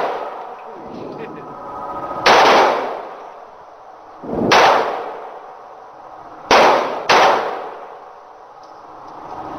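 Handgun firing four single shots in a reverberant indoor shooting range, each with a long echoing tail. The first three come about two seconds apart; the fourth follows the third within about half a second.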